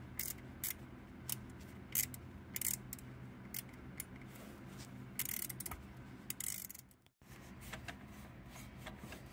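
Faint, irregular small clicks and scrapes of metal parts being handled while the crankshaft position sensor is fitted back and its mounting bolt threaded in, over a faint steady low hum. The sound cuts out briefly about seven seconds in.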